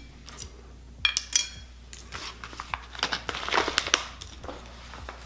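Crinkling and light clicks and taps of things being handled at a kitchen counter, among them a white plastic spoon set down on a ceramic plate. The loudest sharp clicks come about a second in, and a second cluster comes around three to four seconds in.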